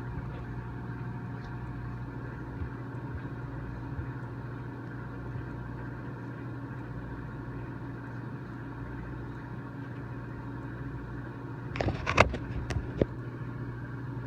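Microwave oven running with a steady hum while it heats a stainless steel YETI Rambler tumbler of tea, with no sparking. A few short knocks near the end.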